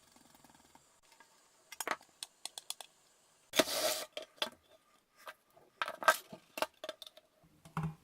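Sheet metal and hand tools being handled: scattered sharp metallic clicks and clinks, with a short scraping rattle about three and a half seconds in.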